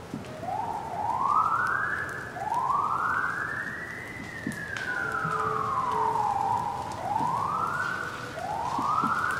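An emergency vehicle siren wailing in repeated sweeps: several rises in pitch, a long slow fall in the middle, then two more rises near the end.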